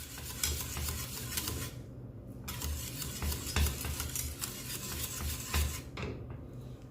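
A utensil stirring an orange milk custard as it thickens in a saucepan on the heat, with irregular small clicks and soft knocks against the pan that pause briefly twice.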